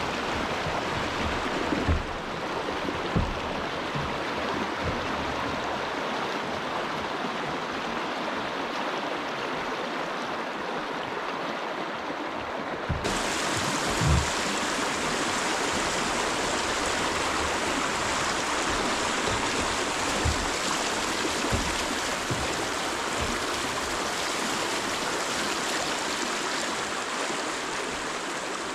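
Shallow river riffle rushing over rocks: a steady rush of water, with a few dull knocks. The rush turns brighter about halfway through.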